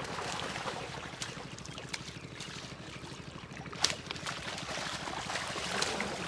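Water sloshing and splashing, with scattered sharp clicks and knocks, the loudest a little under four seconds in.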